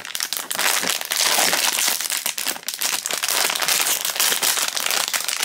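Silver foil blind bag crinkling and rustling continuously as hands pull it open.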